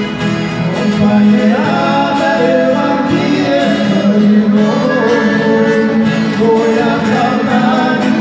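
Live Brazilian caipira song played on two acoustic guitars and an accordion, with a voice singing the melody over them.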